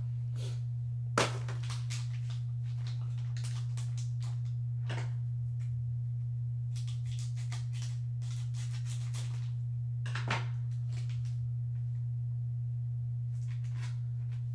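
Steady low electrical hum, under the crinkling of a foil trading-card pack being cut open with scissors and handled. Two sharp clicks, about a second in and again about ten seconds in.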